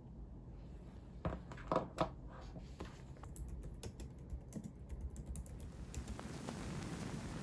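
Typing on a compact wireless keyboard with round keys, a quick run of soft key clicks from about three seconds in, after a few louder knocks on the desk.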